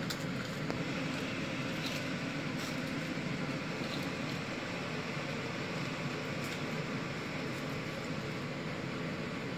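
A fan running steadily, with a few faint light clicks over it.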